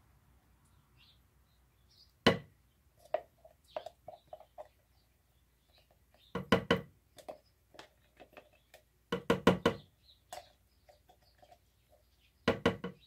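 Metal can of pumpkin puree being scraped out with a spatula and knocked against the pot: scattered sharp knocks and clacks, with several quick runs of knocks in the second half.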